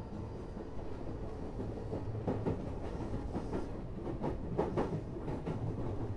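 Odakyu 8000 series electric commuter car running along the line with a steady rumble. From about two seconds in, the wheels clack over rail joints in a quick run of paired knocks.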